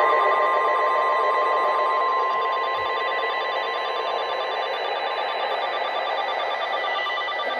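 NOAA Weather Radio warning alarm tone: one steady, unwavering tone of about 1050 Hz over the receiver's radio hiss, slightly louder in the first two seconds and ending near the end. It signals that a warning broadcast, here a severe thunderstorm warning, is about to follow.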